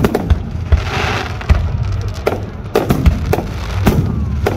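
Fireworks display at close range: a string of sharp bangs, about one every half second to a second, with a crackling hiss about a second in, over a steady low rumble.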